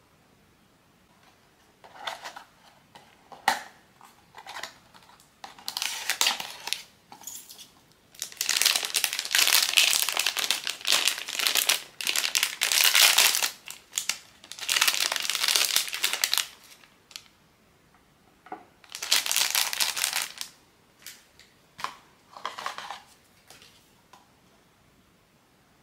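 Crinkly packaging wrapper being crumpled and handled in irregular bursts, the longest and loudest about eight to sixteen seconds in, with a shorter burst near twenty seconds.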